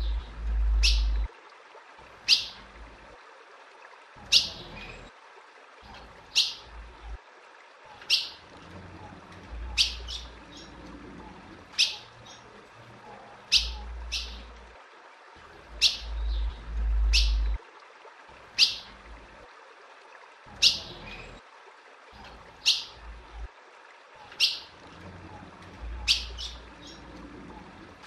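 Female ultramarine grosbeak (azulão) calling: short, sharp, high chip calls about every two seconds, now and then two in quick succession. A low rumble sits under some of them.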